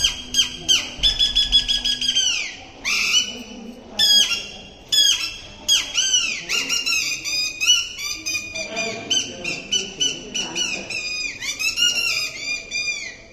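Rajasthani string-puppet performer's mouth whistle (boli) voicing the puppet: rapid runs of shrill, squeaky chirps, many sliding down in pitch, broken by short pauses.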